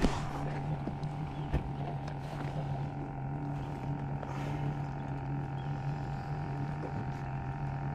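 Steady low hum of a running motor, unchanging throughout, with a single sharp click about one and a half seconds in.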